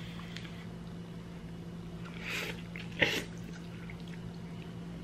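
A person slurping noodles off chopsticks: a soft drawn-in slurp a little after two seconds, then a shorter, louder one about three seconds in. A low steady hum runs underneath.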